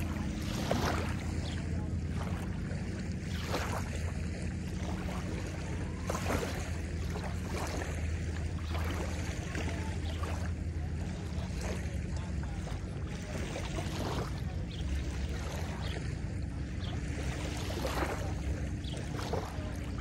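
Small lake waves lapping and washing onto a sandy shore every second or two, over the low steady hum of a distant motorboat engine.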